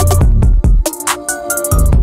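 Electronic background music with a drum beat and deep bass.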